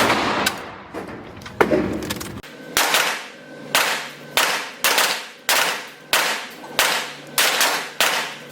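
Firearm shots at a shooting range: a couple of single shots, then from about three seconds in a steady string of shots roughly every half second or so, each trailing off in echo.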